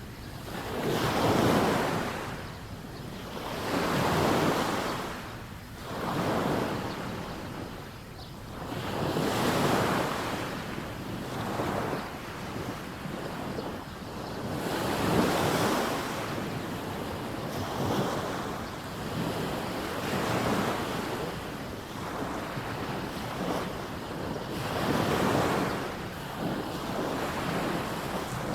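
Waves washing onto a sandy beach, each surging up and falling away every two to three seconds in a steady rhythm.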